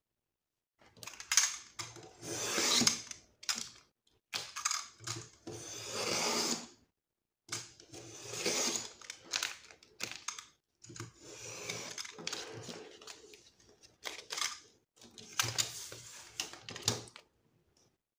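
Paper being trimmed and handled: a series of irregular cutting and rustling strokes, each about half a second to a second long, with short pauses between.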